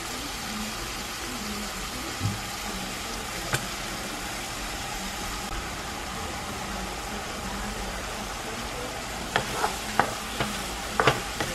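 Ground beef with diced tomato, green pepper and onion sizzling in a frying pan while a wooden spoon stirs it: a steady sizzle, with a few knocks and scrapes of the spoon against the pan, most of them near the end.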